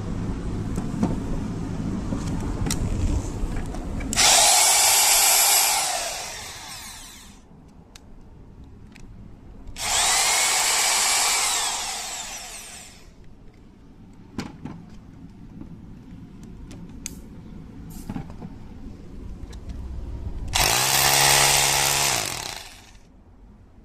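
Makita HR2631F SDS-plus rotary hammer drill run with no load in three short bursts: each time the motor spins straight up to a loud high whine, runs for a couple of seconds, then winds down as the trigger is released. A steadier, lower running sound fills the first few seconds before the first burst.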